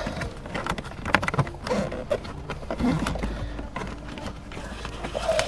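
Hand-fed cable being pushed behind plastic dashboard trim: irregular light clicks, taps and scrapes of wire and plastic.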